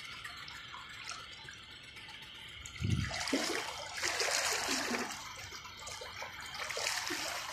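Floodwater sloshing and splashing, faint at first, then louder and uneven from about three seconds in, starting with a low thump.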